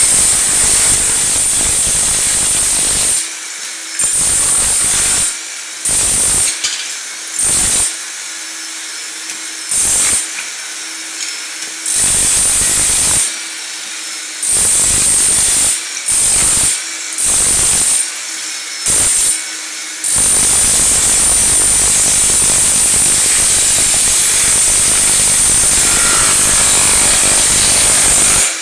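Electric chipping hammer with a dust-shrouded chisel breaking up ceramic floor tile and thinset. It runs in bursts of a second or two with short pauses, then steadily for the last eight seconds or so. Under it, a dust-extraction vacuum runs the whole time with a steady high whine.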